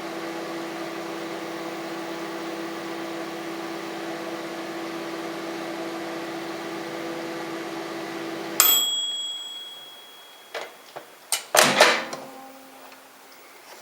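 Microwave oven running with a steady hum, then shutting off with a single ringing ding about two-thirds of the way through. A few short clicks and knocks follow.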